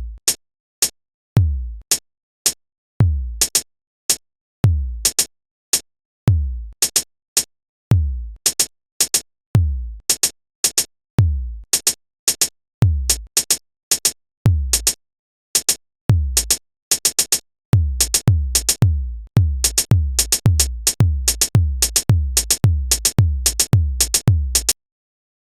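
Programmed drum-machine beat made in LMMS: deep kick drum hits about every second and a half, with short hi-hat ticks between them. About three quarters of the way through, the kicks speed up to nearly two a second, and the beat stops shortly before the end.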